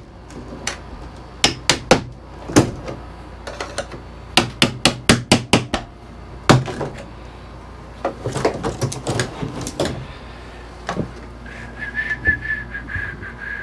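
Hammer blows on a wooden crate as it is knocked apart: scattered strikes, then a quick run of about seven blows, about five a second, and weaker knocks after. Near the end a steady high tone sounds for about two seconds.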